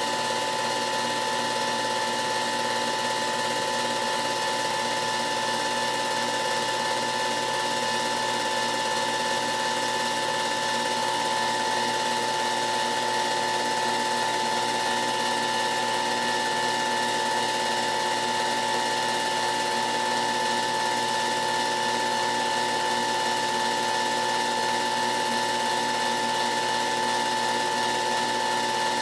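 Film projector running: a fast, even mechanical clatter from the film advance under a constant whine, unchanging throughout.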